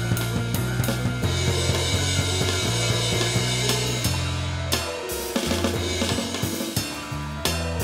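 Jazz trio playing: drum kit with snare, bass drum and cymbals over an electric bass line and keyboard. About five seconds in the bass thins out, leaving mostly drums.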